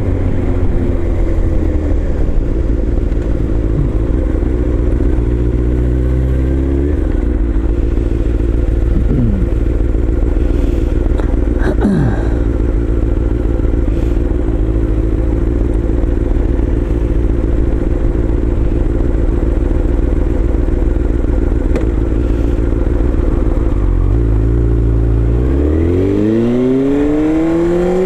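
Honda CBR inline-four sport bike engine running under way at a steady cruise. Its note steps down in pitch about seven seconds in, then rises steeply near the end as the rider accelerates hard.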